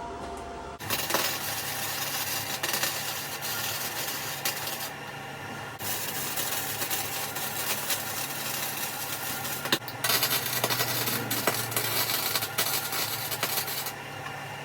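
Arc welder crackling as tack welds are laid on a steel box-section frame. It starts about a second in, with a short break about ten seconds in.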